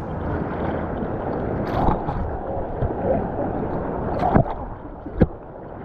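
Steady rushing of waterfall water, with two sharp knocks near the end.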